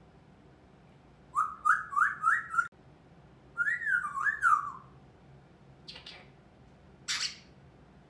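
African grey parrot whistling: a quick run of four rising whistled notes, then a few swooping up-and-down whistles. Two short raspy calls follow near the end.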